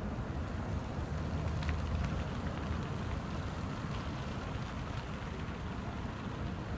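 Light road traffic: cars and a van passing, a steady low rumble of engines and tyres that swells slightly about two seconds in.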